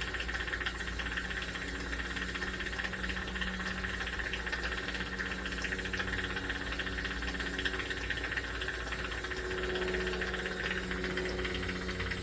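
Jeweler's soldering torch flame hissing steadily while solder is flowed into a gold necklace link.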